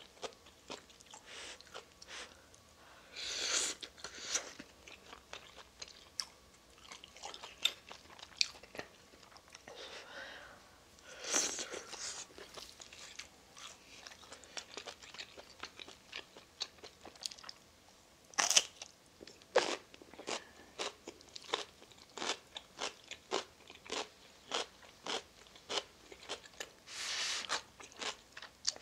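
Close-miked chewing and mouth sounds of a person eating ramen noodles, many small wet clicks. Three longer, louder noodle slurps come about 3 seconds in, about 11 seconds in, and near the end.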